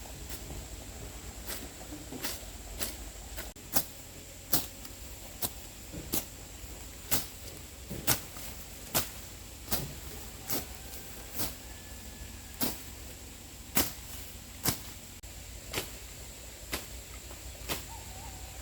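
A steady series of sharp blows, about one a second, like a hand tool striking wood or bamboo, over a faint constant high whine.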